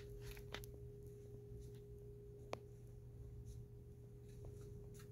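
Quiet room tone: a faint steady hum with a thin held tone above it, and a couple of soft clicks, the clearest about two and a half seconds in.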